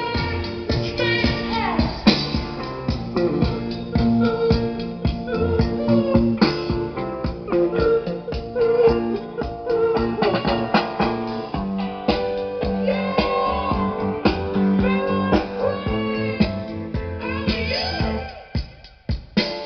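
Music: a song with guitar and singing, with a steady beat.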